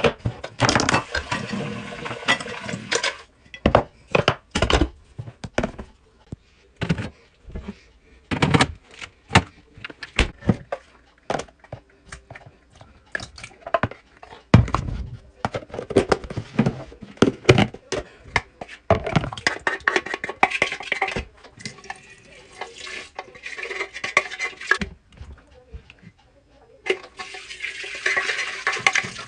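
Kitchen work: pots, dishes and plastic containers knocking and clattering, with a tap running at the sink in several stretches.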